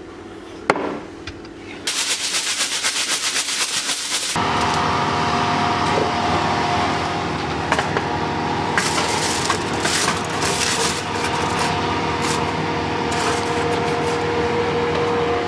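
Aluminium foil crinkling in quick crackling bursts as it is folded over a baking tray, with a sharp click under a second in. From about four seconds in, a steady hum with a few faint whistling tones sits under it.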